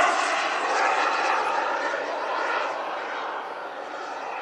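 Frank-Turbine 180 model jet turbine of a 3.5 m BAE Hawk model in flight: a steady jet rush with a faint whine, fading gradually as the model flies away.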